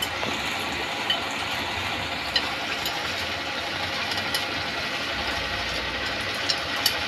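A few light metallic clicks and taps from a utensil against a toaster oven's wire rack and a plate as grilled dried fish is lifted out, over a steady mechanical hum.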